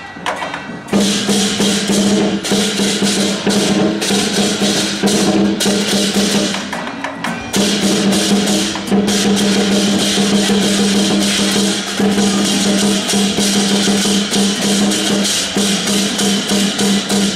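Lion dance percussion: a large drum beaten in fast, continuous rolls with clashing cymbals. It drops out for a moment just after the start and eases briefly around seven seconds in.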